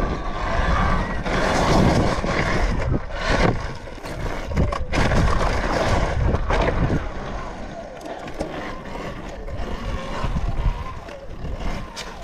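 Wind rushing over the microphone and tyre noise from a Talaria Sting electric dirt bike being ridden over asphalt and loose gravel, louder for the first several seconds and easing off in the second half.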